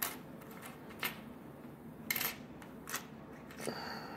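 Pennies clicking against each other and tapping on a wooden table as they are slid off a stack one at a time: about five sharp clicks, roughly a second apart.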